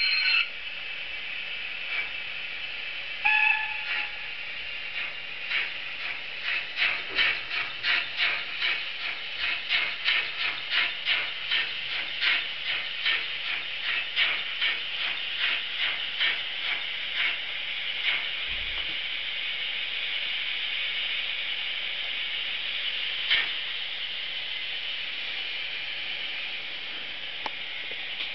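Sound decoder of a model GWR 38xx-class steam locomotive playing steam sounds: a steady hiss, with a brief tone about three seconds in. From about five seconds in, a regular rhythm of exhaust chuffs comes in and fades back into an even hiss after about eighteen seconds.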